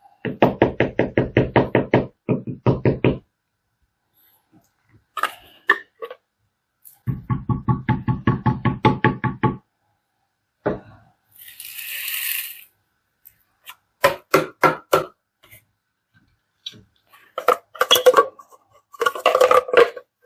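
Two spells of rapid, even knocking, about eight knocks a second, followed by a brief hiss near the middle and scattered clicks and rattles toward the end.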